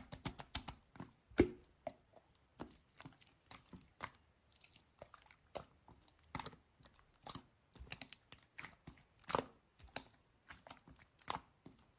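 Typing on a keyboard: irregular soft clicks and taps, a few a second, with one louder tap about a second and a half in.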